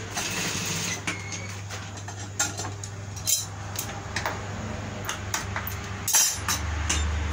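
Metal tailor's scissors snipping thread ends at an industrial sewing machine: about five sharp, separate metallic snips and clicks, heard over a steady low hum from the machine's idling motor.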